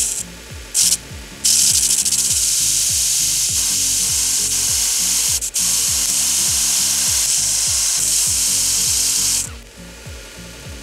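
Steel hex-shank Phillips bit ground against the abrasive belt of a small belt grinder, shaping its worn cross tip into a conical center-punch point. It goes as two short touches, then a long steady grinding hiss of about eight seconds with a brief lift midway. Background music with a steady beat plays underneath.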